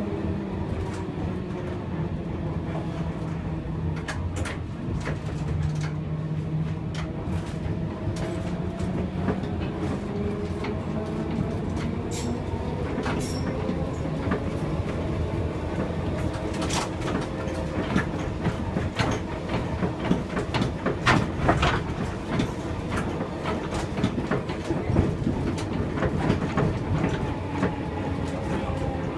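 A 1959 Gotha T57 tramcar running along the track, heard from inside the driver's cab. There is a steady running noise with a whine that rises and falls in pitch, and wheels clicking and knocking over the rails, the knocks coming thicker in the second half.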